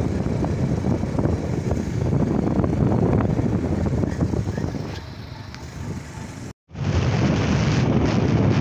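Wind buffeting the microphone: a rough, steady low rumble that drops away for a moment about six and a half seconds in, then comes back as loud.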